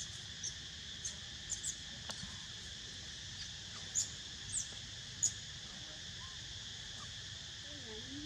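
Steady high drone of insects in the trees, with a handful of short, sharp, high chirps scattered through the first half, the loudest about four and five seconds in.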